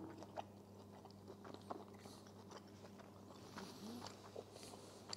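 Faint chewing of a mouthful of grilled steak, with small wet mouth clicks scattered throughout, over a low steady hum.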